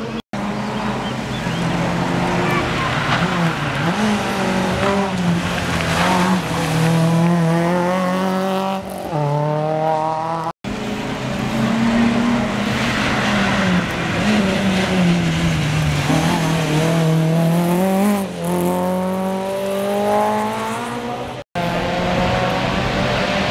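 Rally cars at full stage pace, engines revving high and dropping back repeatedly through gear changes and lifting off for corners. The sound breaks off abruptly twice as one car's pass gives way to the next.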